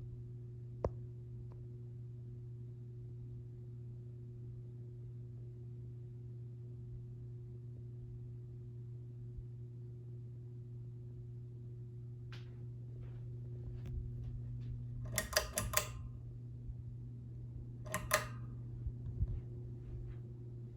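Steady low hum of a 42-inch Progress Lighting Airpro builder ceiling fan's motor running. Past the middle come a few light clicks and two short rattles, about 15 and 18 seconds in.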